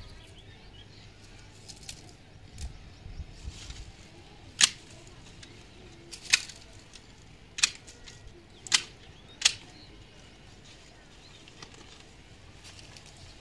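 Hand shears snipping through plant stems during pruning: five sharp cuts, irregularly spaced about a second apart.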